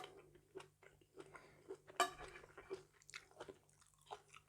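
A person chewing and biting into seafood salad close to the microphone: irregular wet clicks and crunches, with one sharp crunch about two seconds in.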